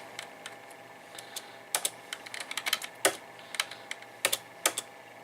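Computer keyboard keys pressed in an irregular run of quick clicks, starting about a second in and going on to near the end, over a faint steady hum.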